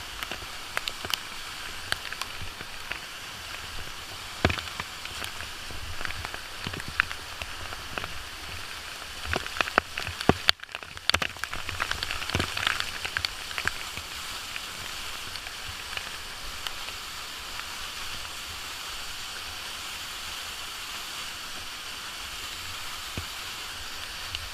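Falling water of a waterfall: a steady rushing hiss dotted with many sharp drip and splash hits, busiest around the middle. The sound cuts out for a moment about ten seconds in.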